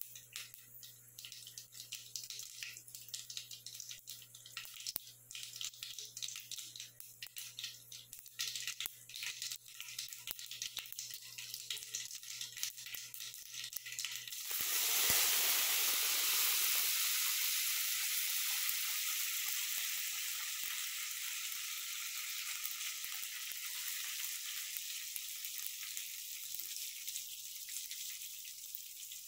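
Hot oil in a wok crackling and popping around mustard seeds and dal. About halfway through, chopped onions and green chillies go into the oil and it breaks into a loud sizzle that slowly settles.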